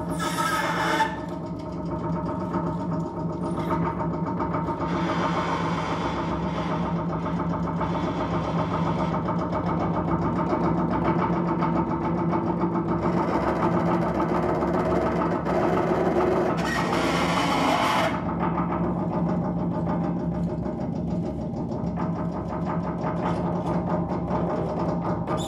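Free-improvised contemporary music from a double bass and a second player working objects on wooden boxes. A dense, sustained texture enters suddenly over a steady low drone, with brighter, hissing layers swelling in twice.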